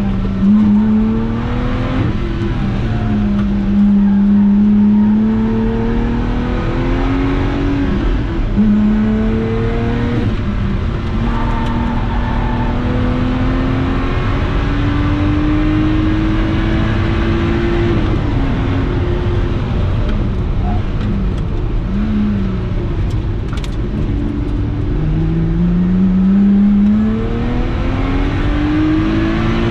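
Lotus Exige 350 Sport's supercharged 3.5-litre V6 heard from inside the cabin, accelerating through the gears on track: the engine note climbs and drops sharply at each upshift. About two-thirds through it falls and wavers as the car brakes and shifts down, then climbs again near the end, over steady road and wind noise.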